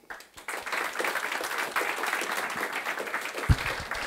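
Audience applauding, a dense patter of clapping that starts just after the start, with a single low thump about three and a half seconds in.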